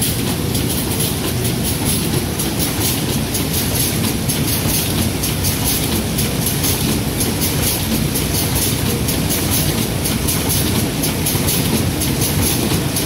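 Automatic polypropylene woven bag sewing line running, stitching bag tops and bottoms: a steady, loud mechanical clatter with a rapid, even ticking.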